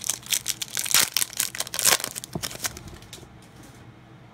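A Pokémon Generations booster pack's foil wrapper being torn open and crinkled in the hands. The tearing and crinkling crackles for about two and a half seconds, then dies down.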